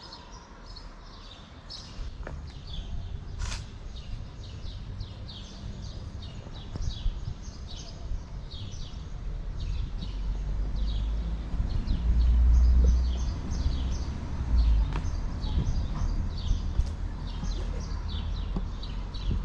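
Small birds chirping over and over, many short high chirps overlapping, over a low outdoor rumble that swells to its loudest about two-thirds of the way through.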